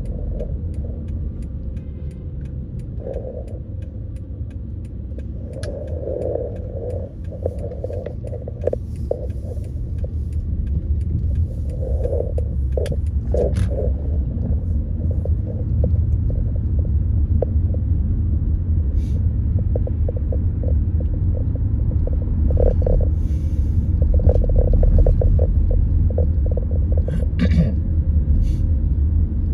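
Low, steady road and engine rumble heard inside a moving car's cabin, growing louder about a third of the way in as the car picks up speed, with scattered small ticks and rattles.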